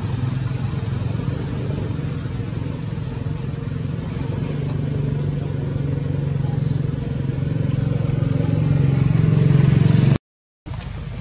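A motor vehicle engine running with a steady low hum, growing louder toward the end, then cut off abruptly.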